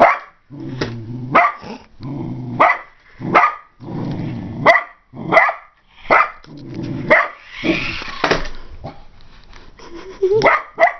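A dog barking repeatedly, roughly once a second, with growling between the barks, as it faces off against a remote-control toy car chasing it.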